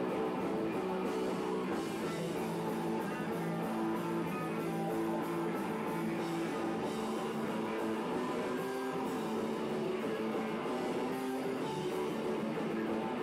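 A rock band playing live, guitars holding long notes that shift every second or two.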